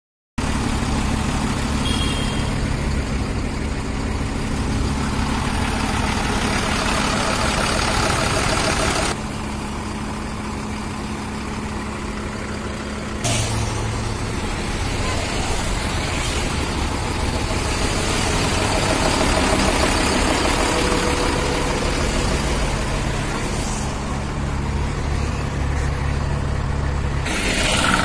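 Diesel engine of an AMW 3118HL tipper truck idling steadily during an HHO engine carbon-cleaning treatment.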